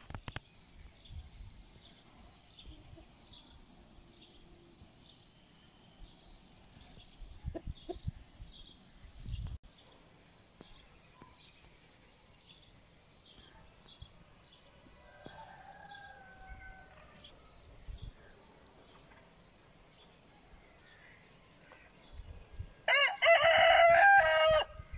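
Lohmann Brown rooster crowing once, loud and about two seconds long, near the end. Before it, a faint high chirp repeats about once a second.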